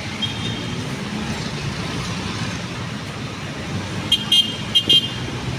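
Road traffic running steadily, with a short high-pitched toot just after the start and a quick series of three or four high-pitched horn beeps about four seconds in.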